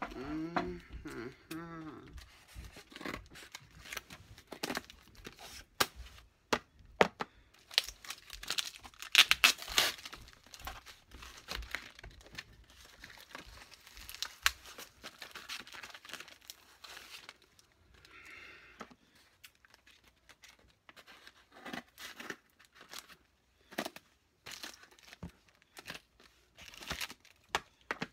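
A paper mailer and plastic wrapping being torn open and crinkled by hand, in irregular bursts of tearing and rustling with small clicks and knocks. The tearing is loudest about eight to ten seconds in, and a short hum of a voice comes near the start.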